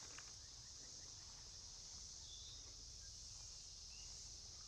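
Faint outdoor ambience of insects droning steadily in a high, even hiss, with a couple of short, faint bird chirps.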